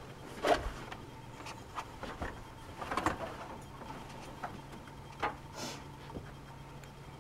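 Bedding being smoothed and tucked onto a hospital bed: fabric rustling with several sharp knocks and bumps against the mattress and bed frame. The loudest knock comes about half a second in, a cluster follows near three seconds in, and another knock comes about five seconds in. A faint steady hum sits underneath.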